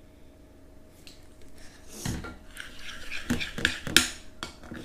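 A utensil stirring slime mixture in a bowl, clicking and scraping against the bowl, starting about two seconds in with the sharpest click near the end. The mixture of glue and shaving foam is being stirred as boric acid solution goes in to activate the slime.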